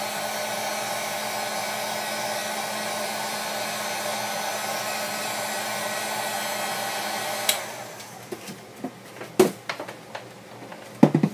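Heat gun blowing steadily, switched off with a click about seven and a half seconds in and running down, followed by a few light taps and clicks.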